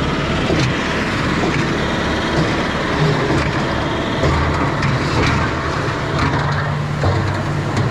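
Concrete pump running steadily during a clean-water washout, its engine humming under a constant gritty rattle and clatter as water is pushed through the hopper and line.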